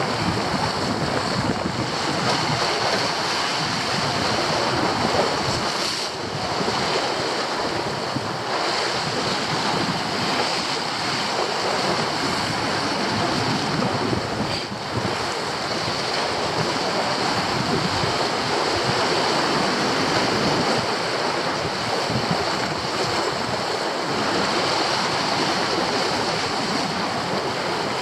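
Sea surf washing and breaking over rocks, a steady rush of water with slight swells.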